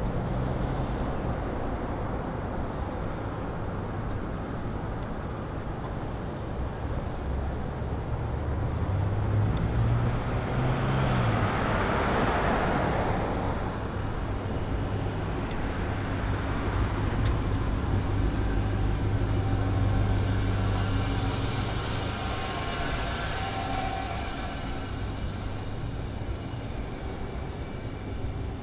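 City street traffic: a steady low engine rumble, with a vehicle passing close about halfway through, swelling and then fading. Another engine hums and fades in the later part.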